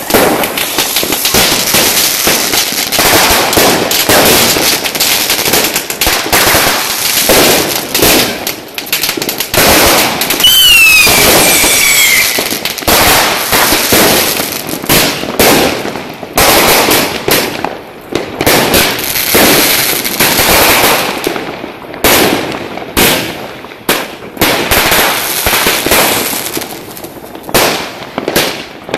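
Fireworks display: rockets bursting in a near-continuous run of bangs and dense crackling. About ten seconds in, a whistle falls in pitch for a couple of seconds. In the later part the bangs come more separately, with short gaps between them.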